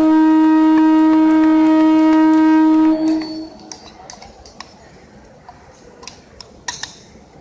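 Train horn giving one long, loud, steady blast of about three seconds that cuts off, followed by faint scattered clicks and knocks.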